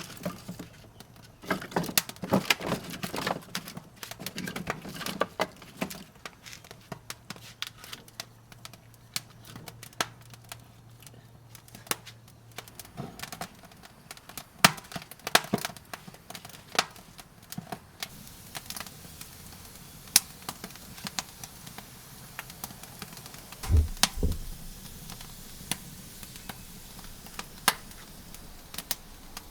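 Wood fire catching in an offset smoker's firebox: irregular sharp cracks and snaps, with knocks of wood being handled in the first few seconds and a dull double thump about 24 seconds in.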